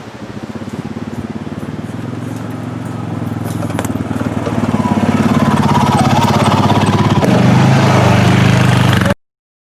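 Honda Pioneer 500 side-by-side's single-cylinder engine running on a trail ride, growing louder over the first half and then holding steady. It cuts off abruptly near the end.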